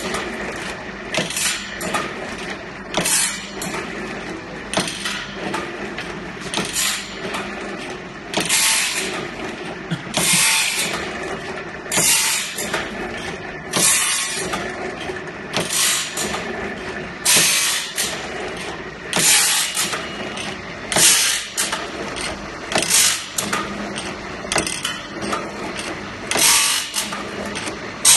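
Band saw blade side-grinding machine: two opposed grinding wheels grinding the sides of the stellite-tipped teeth one tooth at a time. Each pass is a short, sharp grinding rasp, about one every two seconds. Lighter clicks from the indexing mechanism come between the passes, over the steady hum of the wheel motors.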